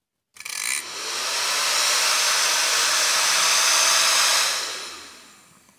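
Opened-up hair dryer running on its first (low) speed, its small fan motor and fan blowing air. It starts about a third of a second in, spins up over a second or so with a faintly rising pitch, runs steadily, then winds down over the last second as the power is switched off. This is a test run after the switch contacts were cleaned of blackened, sparked deposits.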